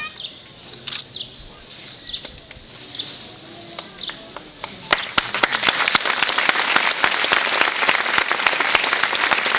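A crowd breaks into applause about halfway through, dense steady clapping that carries on. Before that, scattered bird chirps sound over a low background.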